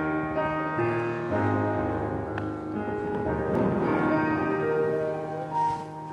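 Keyboard instrument playing slow, held chords that change about once a second, with a sanctuary's echo.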